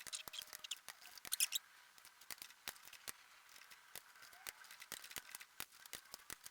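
Ratchet wrench clicking faintly in short runs and single clicks while the cylinder head bolts of a Kubota ZL600 diesel are tightened in sequence.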